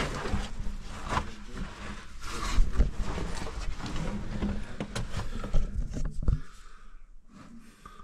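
Scraping and rustling of a person crawling through a tight cave passage: clothing and body rubbing over rock and dirt, with many small knocks and clicks. It stops about six seconds in, leaving only faint movement.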